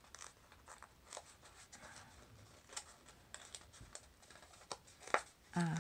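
Stiff paper crinkling and crackling as fingers press the glued zigzag tabs of a paper sphericon together: faint, irregular small clicks, with one sharper click near the end.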